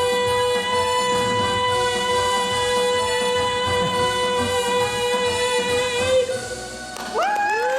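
A singer holding one long, steady final note over the accompaniment, which ends about six seconds in; near the end, rising whoops from the audience begin.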